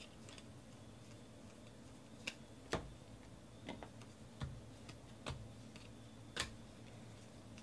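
Stack of 2018 Panini Classics football trading cards being flipped through one card at a time, giving a run of sharp, irregular clicks, about seven in a few seconds.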